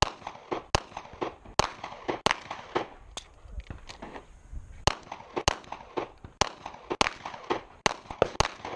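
Gunshots on a shooting range: irregular sharp shots, about one loud shot a second with fainter, more distant shots in between, fired before the shot timer's start beep.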